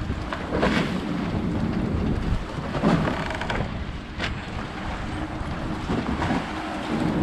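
Storm wind buffeting the microphone in gusts, over a constant wash of water noise, with a few sharp louder gusts along the way. A low steady hum comes in near the end.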